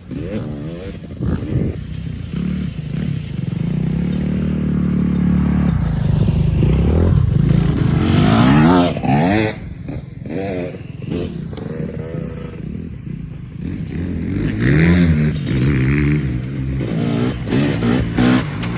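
KTM 250 SX single-cylinder two-stroke motocross engine running under way, holding steady for a few seconds and then revving up and down repeatedly with the throttle.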